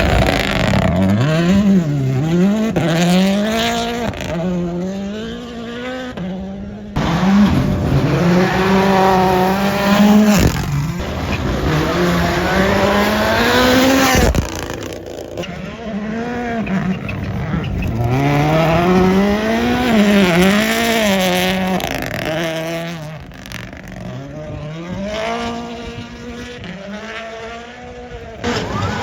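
WRC rally cars at full attack, engines revving hard and dropping in pitch at each gear change and braking point, with some tyre noise on the gravel. Several separate passes follow one another, each cut in abruptly.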